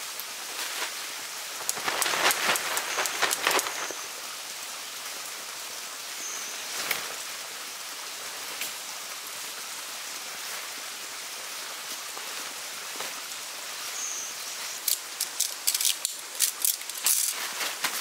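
Nylon tent fabric rustling and crinkling in two bursts of handling, about two seconds in and again near the end, as the tent is folded and packed. Under it runs a steady background hiss.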